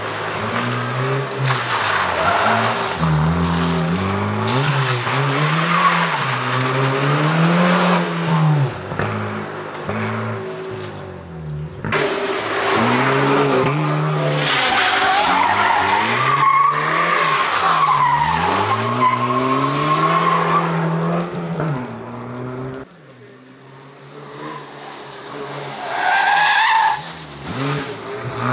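Ford Puma 1.7's four-cylinder engine revving hard and dropping back over and over as the car is driven flat out through a cone slalom, with tyres squealing in the turns, a long squeal in the middle and shorter rising squeals near the end.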